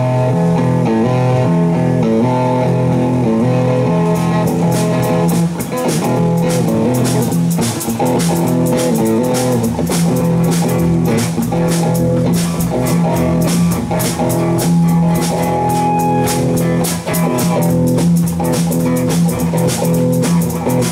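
Live band playing an instrumental passage: electric guitar lines over bass guitar, with the drum kit and cymbals coming in about four seconds in and keeping a steady beat.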